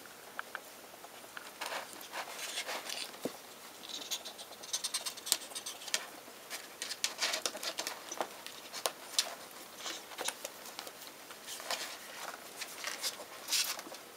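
Two ferrets scrambling over spiral notebooks: an irregular patter of claws scratching and clicking on the paper covers, with the notebooks rustling and knocking as the ferrets push against them.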